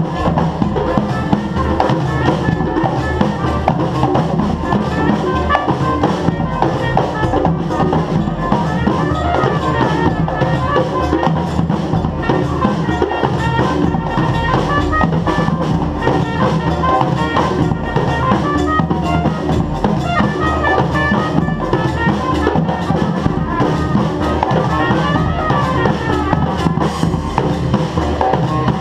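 Street band playing live: drums and percussion keep a steady beat under brass instruments playing a melody.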